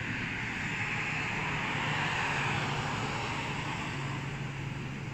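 A low engine hum under a steady rushing noise that swells slightly about two seconds in.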